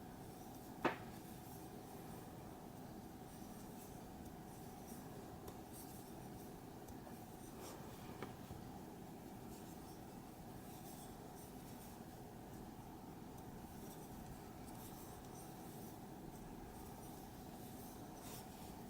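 Faint rustling and scraping of cotton-blend yarn being pulled through stitches with a crochet hook, with a sharp click about a second in and a softer one near the middle, over a faint steady hum.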